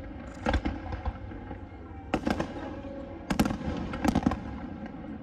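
Aerial fireworks shells bursting overhead: a string of sharp bangs, several coming in quick pairs, over a continuous low rumble.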